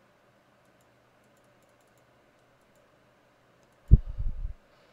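Faint clicks of a computer mouse while scrolling through a program. About four seconds in there is a single dull low thump with a short low rumble after it.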